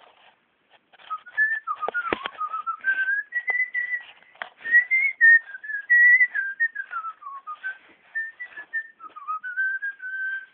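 A person whistling a wandering tune: one clear note that starts about a second in, then steps and slides between held pitches, with scattered light clicks and rustles.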